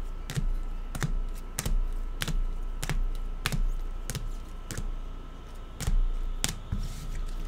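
A steady series of sharp clicks or taps, about a dozen, roughly one every two-thirds of a second, over a faint steady hum.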